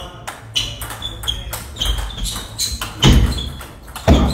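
Celluloid-type table tennis ball clicking sharply off the bats and the table in quick succession during a fast rally. Two heavy low thuds come about three and four seconds in.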